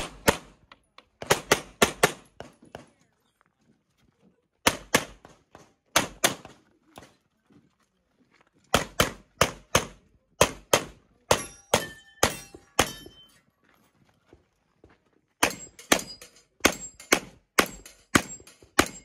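Handgun shots fired in quick strings of several, broken by pauses of a second or two as the shooter moves between positions. In the later strings some shots are followed by a brief high metallic ring.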